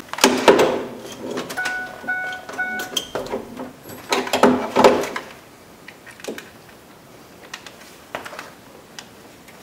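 A wiring harness and plastic connector being handled against a truck's bare inner door panel: rustling and clicking, loudest near the start and again around halfway, then only faint ticks. Three short, evenly spaced electronic beeps about half a second apart come a second or two in.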